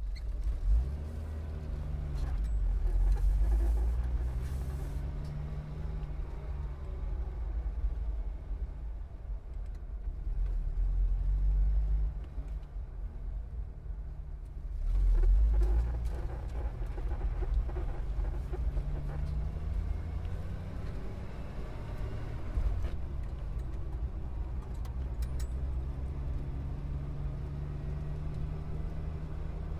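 Low machinery rumble with a hum that slowly wavers in pitch, swelling louder a few times.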